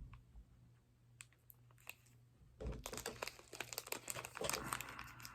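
Crinkling of a Nature Valley bar's plastic wrapper being handled. It is nearly quiet at first with a couple of small clicks, and the dense crackling starts about two and a half seconds in.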